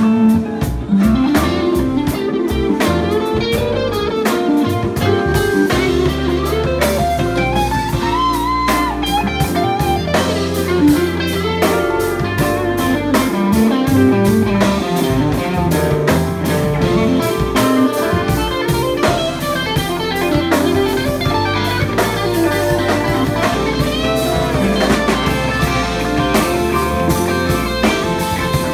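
Live band playing a bluesy tune: a Telecaster-style electric guitar plays a lead line with bent notes over drums and keyboard.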